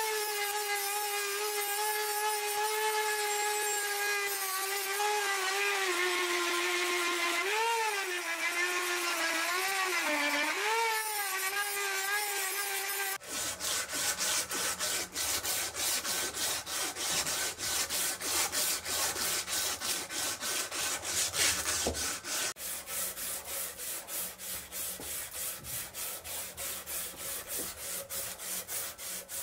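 A handheld rotary tool whines steadily as its bit works the metal, the pitch dipping a few times as it is pressed harder. About 13 seconds in, it gives way to a strip of abrasive cloth pulled back and forth across a polished metal tool head in rapid, even rubbing strokes.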